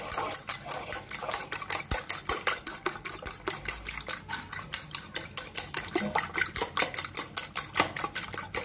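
A fork beating eggs briskly in a bowl, its tines clicking against the bowl in a fast, steady rhythm of about six or seven strokes a second.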